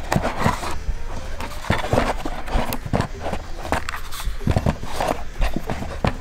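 Small hard objects being handled on a desk: irregular clicks, knocks and scrapes close to the microphone, as batteries and a charger are fiddled with.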